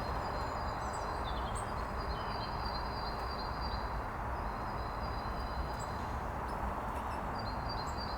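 Small songbirds singing: long, high, rapidly repeated trilling phrases and a few short slurred chirps, over a steady background rush with a low rumble.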